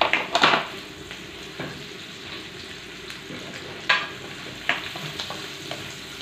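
Onions and garlic sizzling as they sauté in a frying pan, with a spatula scraping and clacking against the pan as they are stirred; the sharpest knocks come about half a second in and again near four seconds.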